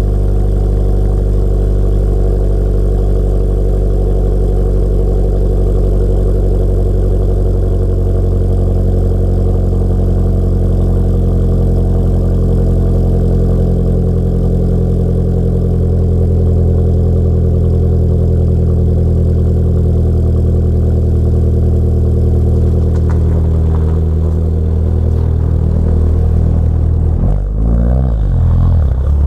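Fiat 500 Abarth's 1.4-litre turbocharged four-cylinder idling steadily through a catless downpipe and a Ragazzon cat-back exhaust with twin mufflers, heard from inside the cabin. Near the end the engine note wavers and shifts as the car pulls away.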